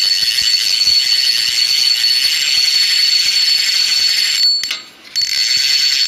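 Loud intro sound effect: a high-pitched steady whine over a hiss, with a fast rattling texture. It drops out for a moment about five seconds in, then returns.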